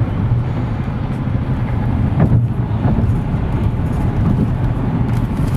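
Steady cabin noise of a car driving at highway speed: a continuous low rumble of engine and tyres on the road.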